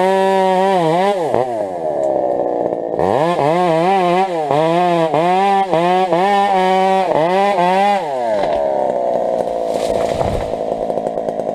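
Husqvarna 372 two-stroke chainsaw running at full throttle in a cut. It drops back briefly about a second and a half in, then revs up again, its pitch dipping and recovering about twice a second as the chain loads up in the wood. About eight seconds in it falls back to idle.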